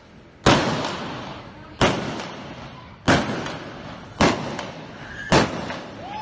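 Five revolver shots fired with blank cartridges at balloon targets, about one every 1.2 seconds, each followed by a long echo under the arena roof.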